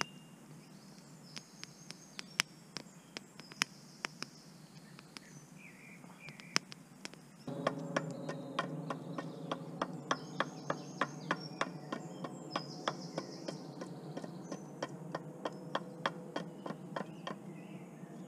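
Birds chirping in woodland, with many sharp crackling clicks. About halfway through, a steady low rushing sound starts suddenly, and the clicks come faster, about three a second.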